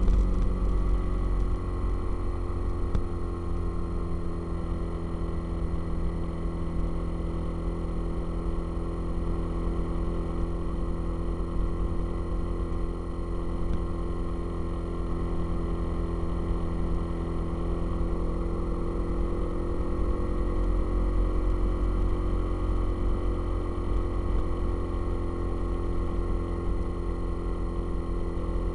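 Motorcycle engine running steadily, its hum holding an even pitch over a heavy low rumble.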